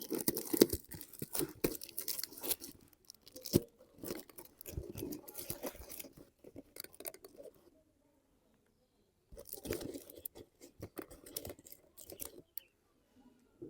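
Toy packaging being torn open and handled: irregular bursts of tearing, rustling and crinkling, with a quiet pause of over a second about halfway through.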